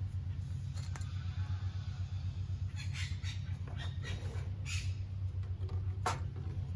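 Small clicks and rustles of gloved hands handling a clear plastic brake-bleeder hose and a wrench at a front brake caliper, a sharp click about one second in and another near the end, over a steady low hum.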